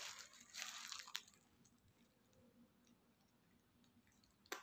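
Paper burger wrapper rustling for about the first second, then soft eating and chewing sounds, with a sharp click near the end.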